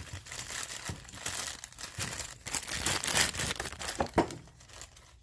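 Crinkling and rustling handling noise with scattered sharp clicks, loudest around the middle and fading near the end.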